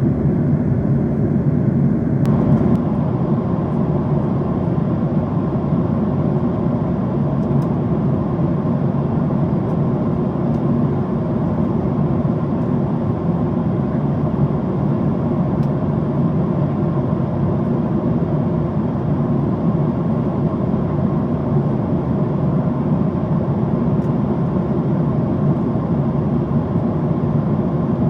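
Steady cabin noise inside a Boeing 767-400ER airliner at cruise: a low drone of engines and rushing airflow, its upper hiss dropping slightly about two seconds in.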